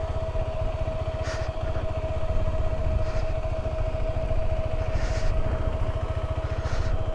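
Motorcycle engine running steadily, a fast low pulsing with a steady high whine over it.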